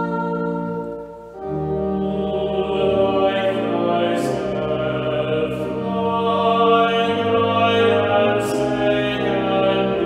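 Church music: voices singing over sustained organ chords that change every second or two, with a brief dip about a second in before the next phrase.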